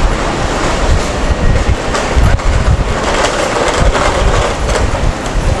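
A train passing close by: a steady rumble with wheel clatter.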